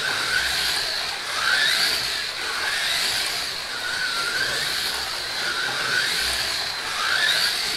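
Pioneer slot cars, a '67 Camaro and a '68 Mustang, running on the track. Their small electric motors make a high whine that rises and falls in pitch about every second and a half.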